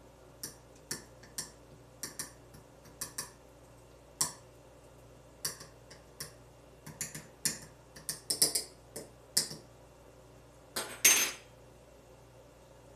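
Cutlery and dishes clinking on a kitchen counter during meal preparation: a string of short, sharp clinks and taps, busiest around eight seconds in, with the loudest clatter about eleven seconds in.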